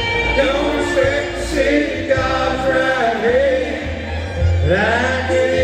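Live bluegrass band playing acoustic guitars, mandolin and upright bass, with voices singing over the strings.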